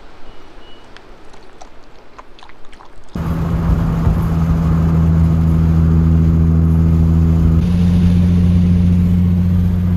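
A few light clicks as a plastic water bottle is handled, then, about three seconds in, a sudden change to the steady drone of a Nissan 350Z's V6 engine heard from inside the cabin while cruising. Its pitch steps up slightly about two seconds before the end.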